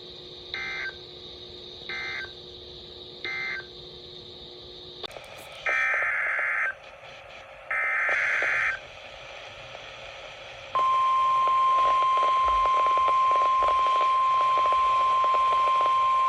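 NOAA Weather Radio Emergency Alert System signalling: three short warbling data bursts about a second apart, the end-of-message code that closes one warning. Then come two longer, louder bursts of the digital header announcing the next warning, and about eleven seconds in the steady single-pitch 1050 Hz warning alarm tone starts and holds.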